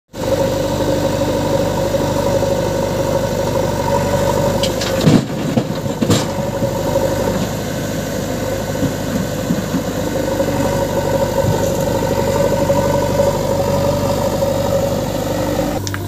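Diesel engines of a JCB 3DX backhoe loader and a tractor beside it running steadily, with a steady hum throughout. Two sharp knocks are heard about five and six seconds in.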